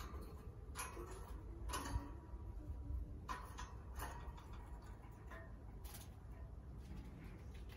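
A peach-faced lovebird clambering on the wire bars of its cage, its claws and beak clicking on the metal. There are a handful of irregular sharp clicks.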